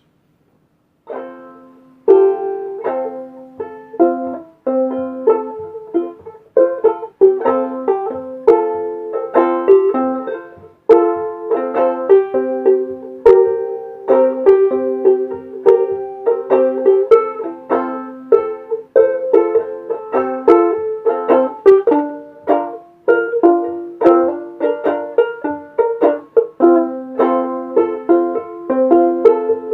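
Kmise four-string concert banjolele (banjo ukulele), with a maple body and drum head, being strummed in a run of chords that starts about a second in.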